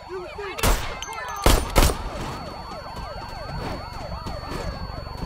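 Several police sirens wailing up and down at once, overlapping. Three loud gunshots ring out in the first two seconds.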